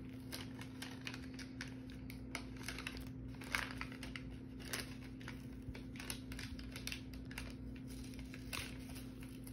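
Small folded wrapping-paper packet being picked at and unfolded by hand: irregular light crinkles and ticks of paper, over a steady low hum.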